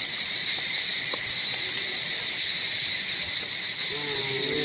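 Steady high-pitched buzzing of an insect chorus. A short low call, like a voice, starts near the end.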